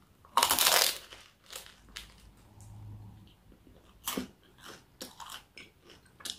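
Biting into a crisp Yorkshire pudding with a loud crunch, then chewing with smaller crunches and another sharp crunch about four seconds in.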